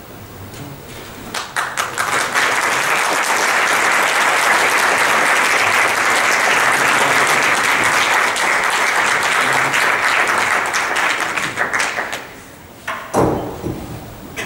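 Audience applauding at the end of a piece: scattered claps about a second in swell into full, steady applause that dies away near the end, followed by a few thumps.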